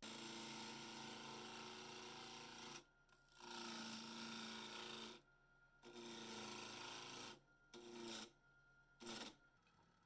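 A turning tool cutting a spinning wood blank on a wood lathe, in five passes of scraping with a steady tone running through each, the last two short, near the end. A faint steady whine from the lathe carries on between the passes.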